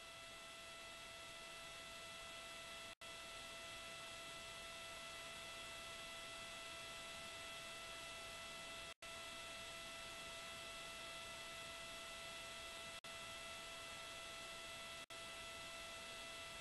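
Faint steady hiss with a high electrical whine: the background noise of a launch broadcast's commentary audio feed between callouts. It cuts out for an instant four times.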